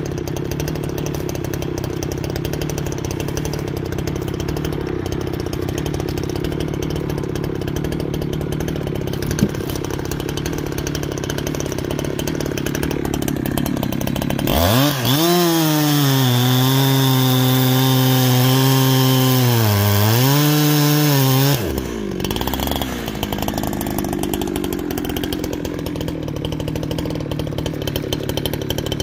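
Farmertec Holzfforma G372XP two-stroke chainsaw idling. About halfway in it is revved sharply to full throttle and held there for about seven seconds while cutting a maple log with a new full-chisel chain, its pitch dipping briefly under load near the end. It then drops back to idle.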